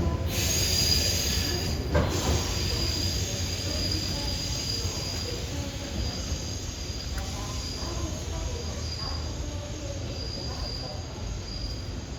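JR Central 213 series electric train pulling away, its wheels rumbling on the rails and slowly fading, with a thin high whine from the wheels coming and going and a single sharp knock about two seconds in.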